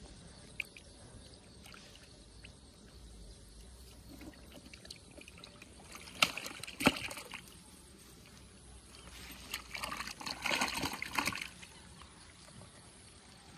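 Small water splashes as a baited hook and float on a bamboo fishing rod are cast into a shallow canal: two sharp splashes about six seconds in, then a few seconds of sloshing and trickling water.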